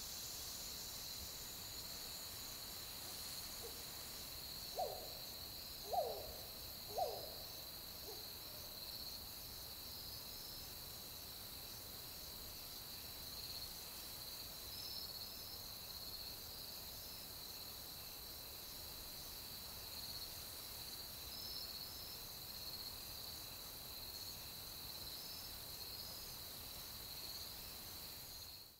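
Night-time outdoor ambience: insects trill steadily throughout. About five seconds in come three short hoot-like calls, each falling in pitch, about a second apart.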